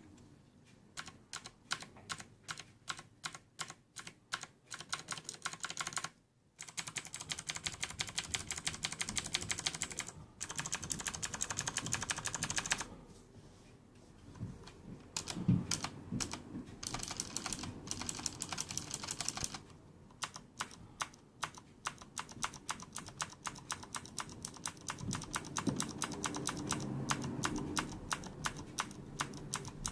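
Typing on a Corsair K70 mechanical keyboard with Cherry MX Blue switches and no O-rings: rapid clicky keystrokes with the keycaps bottoming out, in fast runs broken by short pauses.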